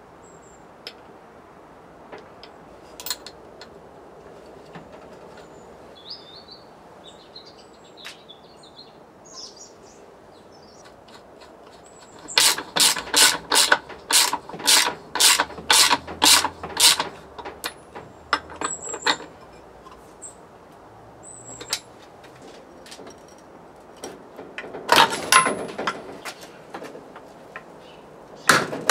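Hand ratchet wrench being worked in strokes. About halfway through comes a run of about a dozen even, loud clicks, roughly two or three a second. Scattered tool clicks and taps come before it, and shorter bursts of ratcheting come later.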